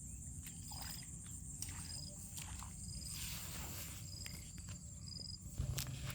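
Outdoor insect chorus: a steady high buzz with a short high chirp repeating about once a second, over scattered rustles and clicks. A low hum comes in shortly before the end.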